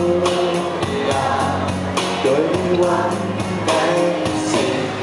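A male singer singing a Thai pop song live into a handheld microphone, with held, wavering notes over backing music with a steady beat.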